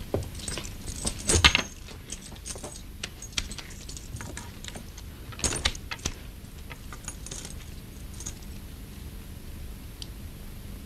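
Scattered light clicks and metallic jingles from handling at a card table, loudest about a second and a half in and again around five and a half seconds, thinning out near the end, over a steady film-soundtrack hiss.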